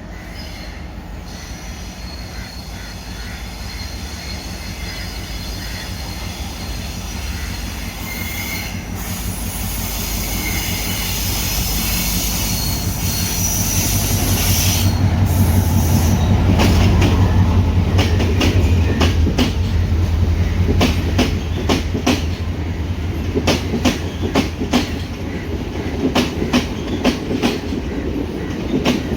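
Sri Lanka Railways Class M6 (EMD G22CW) diesel-electric locomotive passing: the low drone of its engine grows louder to a peak about halfway through, with high wheel squeal partway in. After that comes a steady run of clickety-clack as the wheels cross the rail joints.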